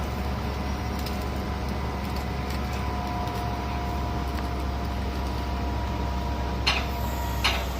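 Heavy diesel construction machinery running steadily, a low drone with a faint steady whine over it, and two short sharp sounds near the end.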